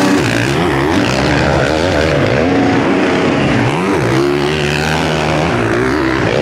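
Several 500 cc motocross bikes racing, more than one engine heard at once, their pitch rising and falling as the riders work the throttle and shift.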